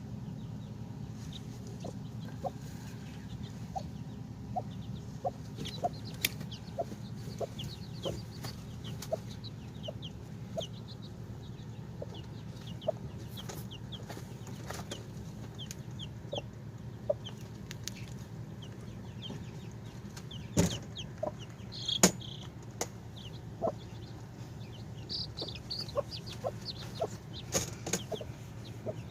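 Mother hen clucking softly and repeatedly while her chicks peep, high and short. There is a steady low hum underneath, and two sharp knocks come a little past the middle.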